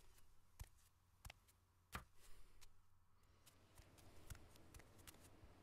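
Near silence broken by faint, sharp clicks at irregular intervals, the strongest about two seconds in, coming more often in the second half over a faint hiss.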